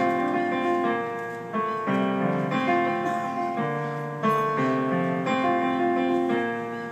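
Yamaha digital piano played solo: slow chords struck and held, each fading until the next chord comes in.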